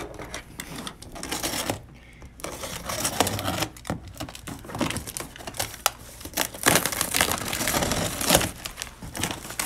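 Crinkling and rustling of a plastic-wrapped cardboard shipping box being handled and opened, with scattered small knocks and scrapes. A longer stretch of rustling and tearing comes about seven seconds in.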